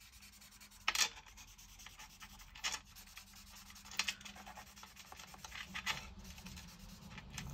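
Stampin' Blends alcohol marker's brush tip being stroked across a sheet of vellum: soft scratchy rubbing, with about five short, sharper strokes a second or two apart.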